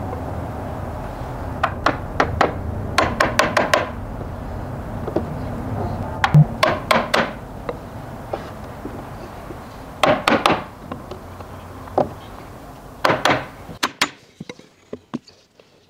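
Steel-headed hammer knocking on wood, driving the tenons of a wooden frame home into their mortises, in several bursts of quick knocks. A steady low rumble runs behind the knocks and cuts off near the end.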